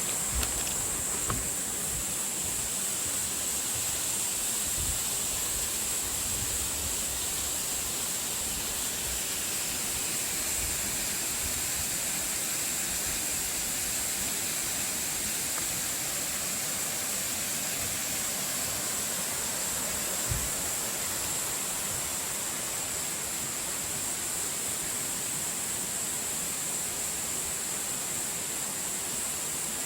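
Steady rushing of a mountain valley stream, with a thin, steady high-pitched whine over it and a few soft low knocks.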